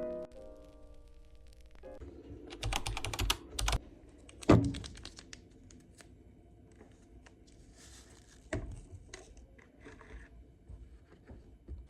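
Soft piano music stops about two seconds in. Then comes a quick run of small clicks and taps, one loud knock, and scattered light clicks, like objects being handled at close range.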